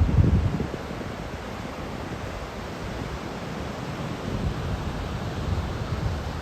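Wind buffeting the microphone over a steady rush of breaking surf whipped up by an approaching typhoon; the strongest gust comes in the first second.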